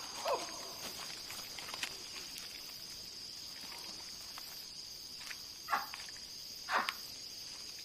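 Steady high chirring of night insects, with a few short sharp sounds over it, the two loudest in the second half.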